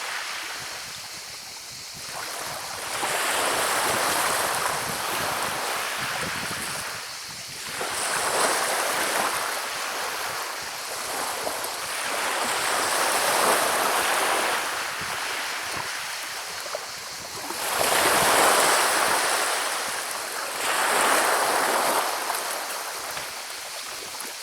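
Sea waves breaking on a shingle beach and rolling the pebbles, a rushing hiss that swells and fades about five times, every four to five seconds.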